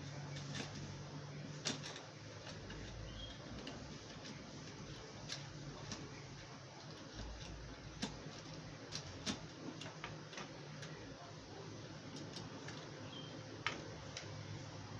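Scattered light clicks and taps at irregular intervals, as small parts of a CNC laser engraver kit are handled and fitted, over a low steady hum.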